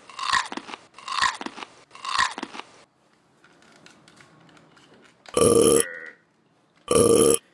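Cartoon chomping sound effect, three bites about a second apart, then after a pause two loud, abrupt burp sound effects about a second and a half apart.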